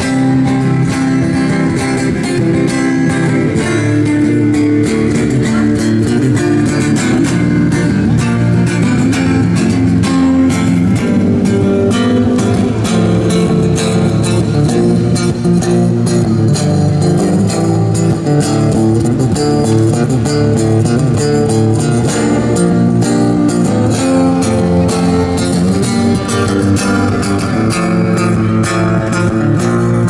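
Takamine electro-acoustic guitar played solo through a small amplifier: a continuous plucked melody over lower notes.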